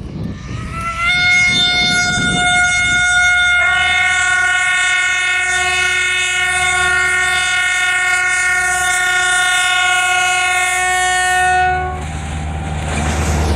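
Diesel locomotive's air horn, an EMD J26CW/AC, sounding one long multi-note blast. It slides up to pitch about a second in, gains a lower note a few seconds later and cuts off near the end, leaving the rumble of the passing train.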